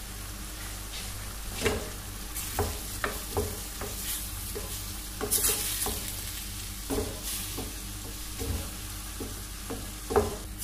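Wooden spoon stirring diced turkey and onion in a stainless steel pan, with irregular knocks and scrapes of the spoon against the pan starting about a second and a half in, over the meat sizzling on the heat.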